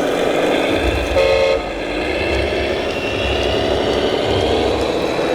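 A short horn toot, about half a second long, a little over a second in, from a radio-controlled model truck's sound module, over steady hall noise and an engine-like sound that rises slowly in pitch.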